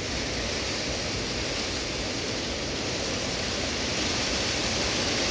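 Steady, even hiss of background noise with no distinct sound standing out, growing very slightly louder toward the end.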